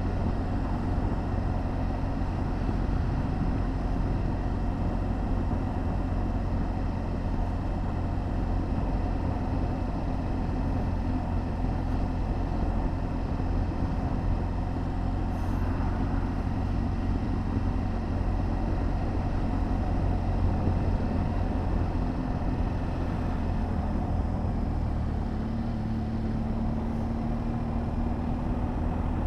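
BMW R1200 GS Adventure's boxer-twin engine running at a steady cruise, under continuous low wind and road rumble, with the engine note rising slightly near the end.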